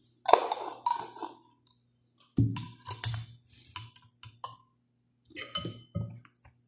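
A glass jar of chili pickle is unscrewed, then a metal spoon clinks and scrapes against the jar and a ceramic bowl as the pickle is scooped onto noodles. The clinks come as separate, short ringing taps in small clusters.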